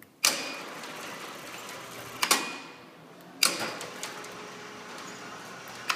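Electric roller shutter door motor starting with a clunk, running about two seconds, stopping with a knock, then starting and running again until another knock near the end.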